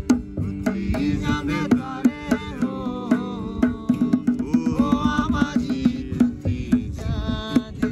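A man singing a folk-style song to his own playing of a two-headed hand drum (dholak), with an acoustic guitar accompanying; the drum strokes come thick and fast under a sliding vocal line.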